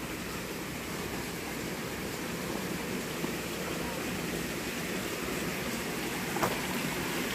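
Steady rush of a shallow stream running beneath a footbridge, its water low in the dry season, with one brief click near the end.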